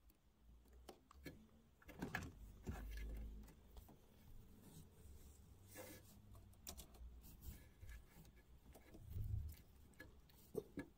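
Faint handling noises: scattered clicks and rubbing, with a low dull thump-like rumble about two seconds in and another near the end, followed by two sharp clicks.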